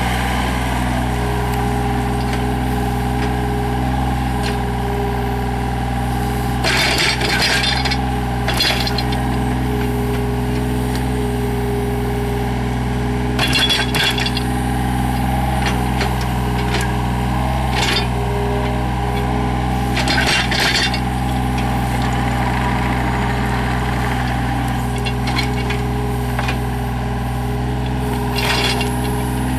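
Yanmar VIO35-3 mini excavator's three-cylinder diesel running steadily while the machine works. Short metallic clinks and scrapes come several times over the engine.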